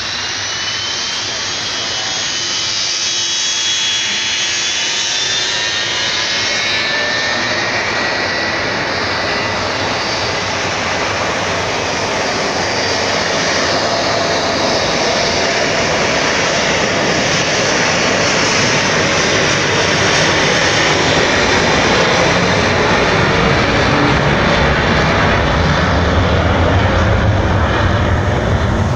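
McDonnell Douglas MD-83's rear-mounted Pratt & Whitney JT8D turbofans at takeoff power during the takeoff roll. High whining tones sound near the start, and a low rumble grows louder toward the end as the airliner gathers speed.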